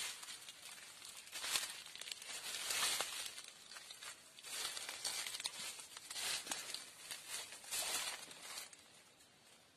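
Rustling and crinkling of leaves in irregular bursts, dying down near the end.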